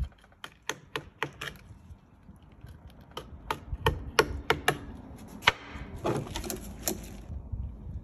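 Knife cutting fish on a bamboo cutting board: a string of sharp, irregular clicks and taps as the blade works against the board, coming in clusters.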